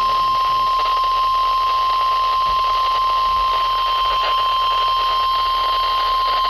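NOAA Weather Radio warning alarm tone: a single steady 1050 Hz tone held unbroken, with radio hiss beneath. It signals that a new warning, here a severe thunderstorm warning, is about to be read.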